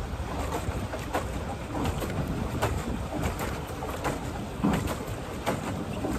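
Wind buffeting the microphone over open water, with water lapping and slapping against a small plastic boat's hull in short irregular splashes.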